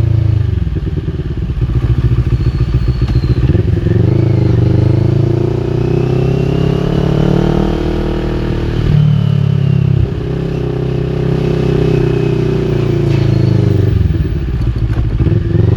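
CFMOTO 400NK parallel-twin engine through an Akrapovic full exhaust system, heard while riding. The revs rise and fall several times, with a sudden change about nine seconds in. There is crackling on the overrun about a second in and again near the end.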